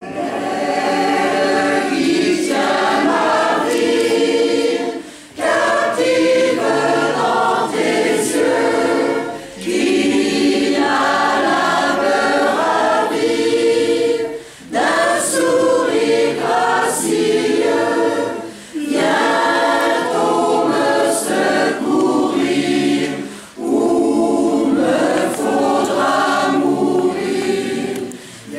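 Mixed choir of women's and men's voices singing in a stone church, in phrases of about four to five seconds with a short breath between each.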